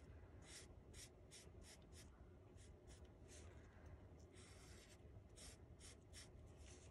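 Black Sharpie marker drawing short lines on a paper flower petal: a faint run of quick hissing strokes on paper, about two a second.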